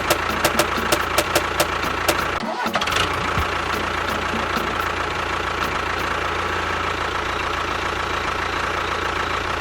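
Small motor of a DIY miniature tractor running steadily, with rapid clicking in the first two seconds and a brief drop-out just after.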